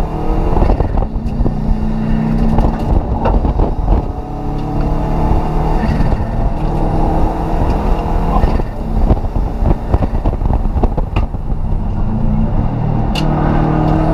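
Rally car engine heard from inside the stripped, roll-caged cabin, revving up and down as the car is driven hard, with scattered clicks and rattles.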